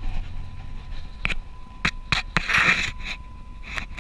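A dog shifting on a rubber vehicle floor mat: scraping and scratching with several sharp clicks, and a longer rustling scrape about two and a half seconds in.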